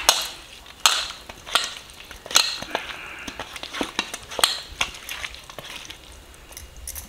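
Fingers rubbing a wet ginger, green chilli and garlic paste into whole small fish on a stainless steel plate: irregular squelches and smears with sharp clicks against the plate, one every half second to second.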